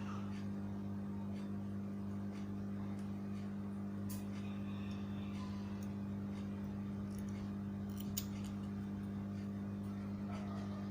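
A steady low electrical hum with scattered small clicks and taps, one sharper click about eight seconds in.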